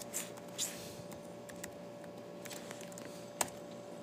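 Sparse, faint clicks of an HP laptop's keys and touchpad as someone types and navigates, with a sharper click about three and a half seconds in, over a steady faint hum.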